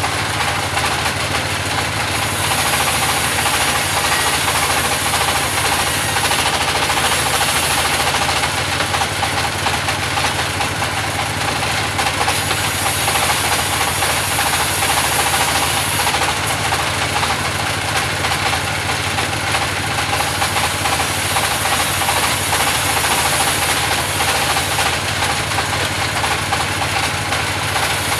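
Band sawmill running steadily while sawing timber, a loud continuous machine noise with a steady whine and a high hiss that swells and eases every few seconds.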